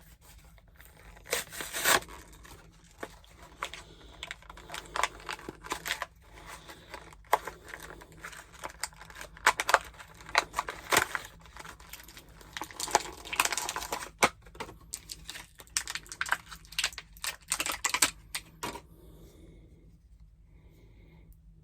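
Action figure packaging being torn open by hand: repeated rasping tears and crinkles of cardboard and plastic in uneven bursts, stopping about two seconds before the end.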